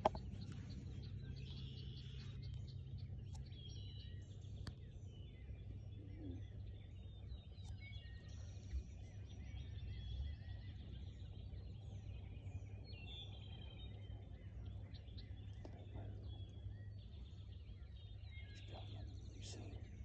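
Quiet field ambience: small songbirds chirping and calling on and off over a low, steady rumble.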